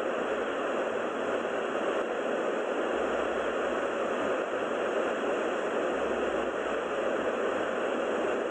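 Cumbre Vieja volcano on La Palma erupting: a steady, even rushing noise with no separate blasts.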